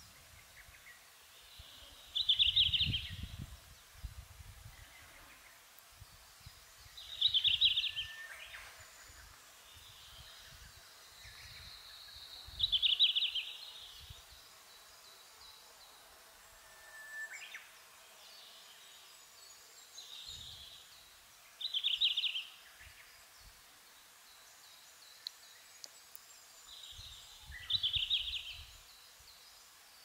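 Red-flanked bluetail song: five loud, short, high phrases of about a second each, spaced several seconds apart, with fainter phrases in between.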